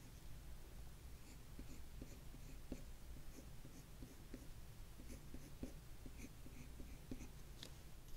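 Oil pastel rubbed on paper in short, light strokes, faint and irregular, about three a second, with one sharper tick near the end.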